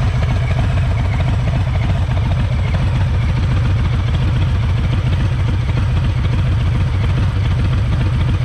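2022 Harley-Davidson Street Bob 114's Milwaukee-Eight 114 V-twin idling steadily, a low, even, pulsing exhaust note through its quiet baffles.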